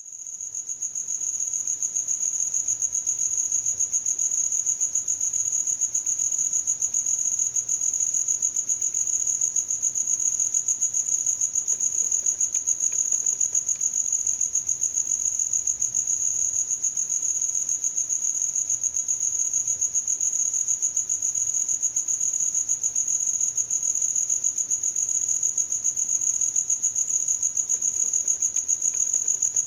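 Cricket chirping: a high-pitched, rapidly pulsing chirp that keeps an even rhythm throughout, fading in over the first couple of seconds.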